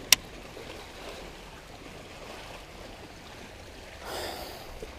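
Faint lapping of lake water around a bass boat, with one sharp click just after the start. About four seconds in there is a short rush of noise as a bass takes the lure and the rod loads up.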